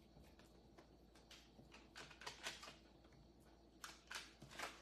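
Near silence with faint taps and scrapes of a fork spreading and pressing a pizza-base mixture on a parchment-lined baking tray, in small clusters about two seconds in and near the end.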